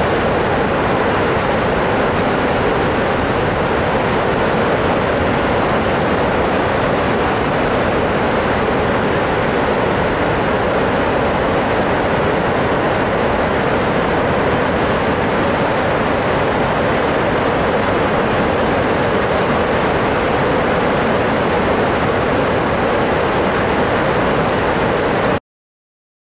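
Floodwater pouring through the open spillway gates of a concrete dam: a loud, steady rush of falling water that cuts off abruptly near the end.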